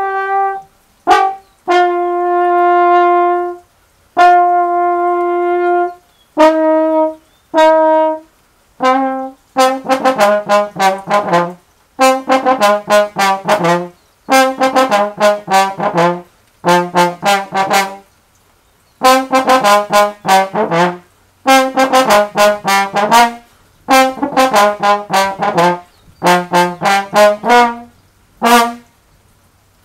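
Solo trombone played unaccompanied: a few long held notes first, then phrases of quick tongued notes in a lower range, separated by short pauses and ending on one short note.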